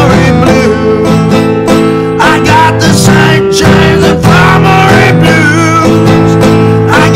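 Steel-string acoustic guitar strummed steadily, with a man singing over it at times.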